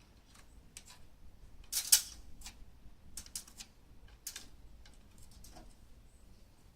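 Light clicks and taps of hand work on a wooden door frame and glass pane, with one sharper knock about two seconds in.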